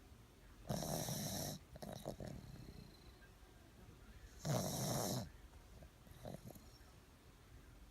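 Snoring: two loud, rough snores about four seconds apart, each lasting just under a second, with fainter sounds between them.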